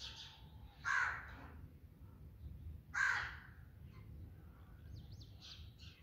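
Two loud, harsh bird calls about two seconds apart, each about half a second long, then faint, quick chirps near the end.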